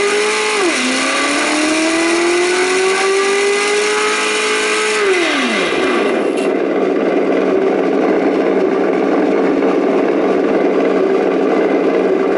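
Engine sound module on a 1/10-scale RC trophy truck, playing a simulated engine: the revs dip briefly, climb steadily for about four seconds, then drop off about six seconds in, and it settles into a steady idle.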